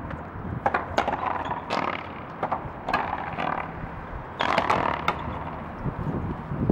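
A frontón rally: the hard ball cracking off the racquets and the front wall in sharp knocks at irregular intervals, sometimes two close together, ringing briefly after each hit.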